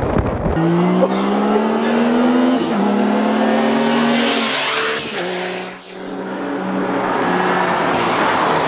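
Vehicle engine running at high revs in a road race, its pitch climbing and then stepping down twice. Wind rush over the microphone fills the first half second.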